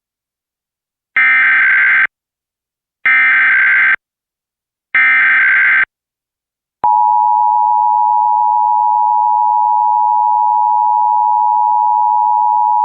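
Emergency Alert System SAME header: three identical bursts of digital data tones, each just under a second long and about two seconds apart, encoding a Required Monthly Test. About seven seconds in, the EAS two-tone attention signal starts and holds as a steady dual tone.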